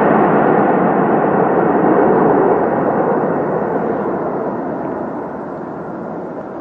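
Jet engines of a twin-engine widebody airliner rolling along a runway: a steady rushing roar that fades gradually from about halfway through as the plane moves away.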